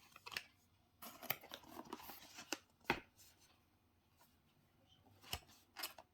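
Packaging being handled: crinkly rustling with sharp clicks and taps, the loudest click about three seconds in and two more near the end.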